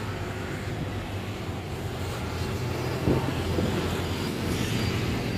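Street traffic noise: cars and motor scooters running by as a steady low drone, with a short knock about three seconds in.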